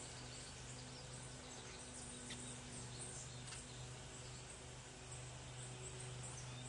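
Faint, steady outdoor background noise with a low hum and a few small ticks.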